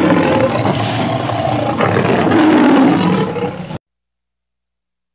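A loud, rough roar with a wavering low tone that cuts off abruptly about four seconds in.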